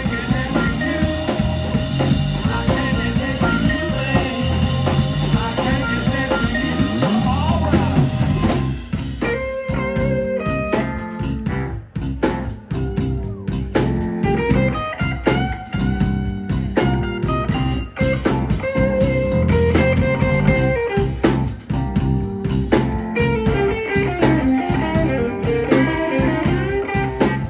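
Live blues band playing: an amplified harmonica cupped against a handheld mic, over electric guitar and a drum kit. The playing is dense for the first eight seconds or so, then opens out into more separate, held notes.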